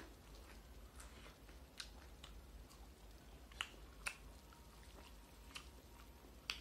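Quiet hand-eating sounds: a handful of scattered wet clicks and smacks from fingers working rice and curry and from chewing, over a faint low hum.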